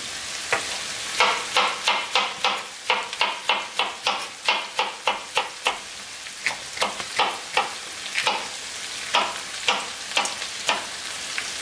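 Kitchen knife slicing red bell pepper into strips on a wooden cutting board: a run of quick taps of the blade on the wood, about three a second, with short pauses. Under it, ground beef and onions sizzle steadily in a frying pan.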